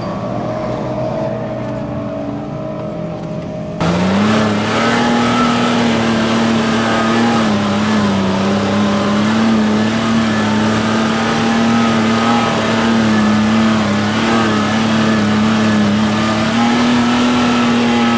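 Off-road 4x4 vehicle engine running; about four seconds in it changes abruptly to a loud engine held at high revs, its pitch wavering slightly up and down as it works under load.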